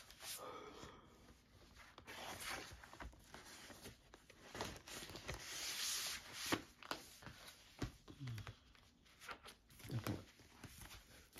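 Paper record sleeves and cardboard LP jackets rustling and sliding against each other as vinyl records are handled, with a few light taps. There is one longer sliding rustle about five to six seconds in.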